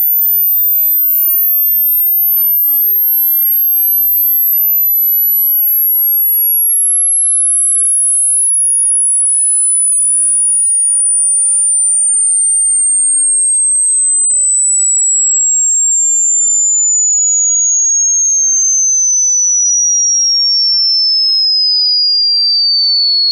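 Hearing-test tone: a single pure sine tone gliding slowly down from very high pitch, about 14 kHz, to about 4 kHz in small steps at a steady level.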